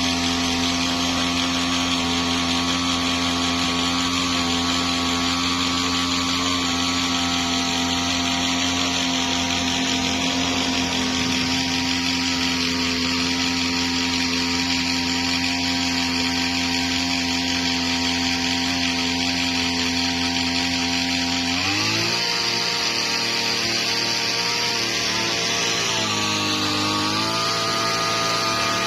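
A machine's motor running steadily, a hum with a hiss above it, that steps up in pitch about two-thirds of the way through and shifts again a few seconds later.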